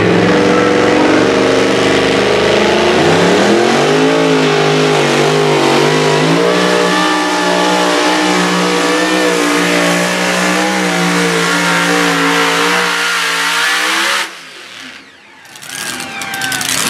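Supercharged engine of a two-wheel-drive pulling truck at full throttle, hauling the sled down the track. The revs climb about three seconds in and hold steady through the pull. About fourteen seconds in the throttle is cut and the engine winds down with a falling pitch, and the engine sound picks up again near the end.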